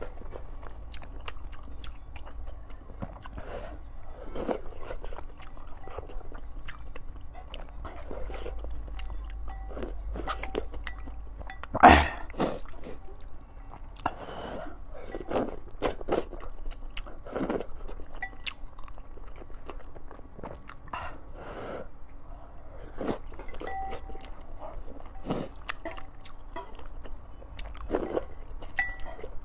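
Close-up eating sounds of a person chewing and slurping chaoshou wontons in chili-oil broth: irregular wet mouth clicks, chewing and sipping. A single louder sharp knock comes about twelve seconds in.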